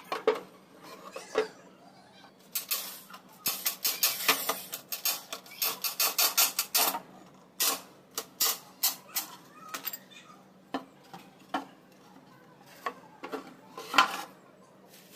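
Sharp knocks and clatter of plywood panels being handled and fitted together, with a dense run of taps in the middle and a loud knock near the end.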